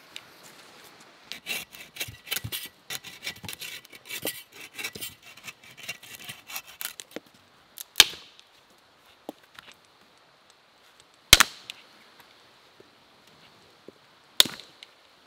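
Close rustling and rapid clicking of things being handled for several seconds, then three single sharp knocks or snaps about three seconds apart.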